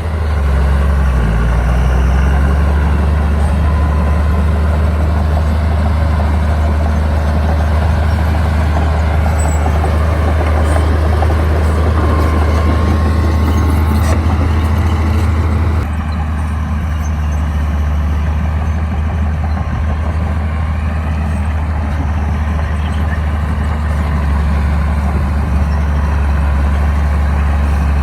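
Diesel engine of a Komatsu D60-series bulldozer running steadily under load with a deep, continuous drone. About halfway through, the sound drops abruptly a little in level, with less mid-range clatter.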